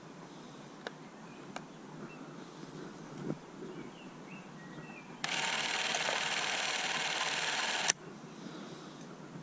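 Bell and Howell cine camera running film: its mechanism whirs steadily for about two and a half seconds, starting about five seconds in and stopping abruptly with a click. Two light clicks come from handling about a second in.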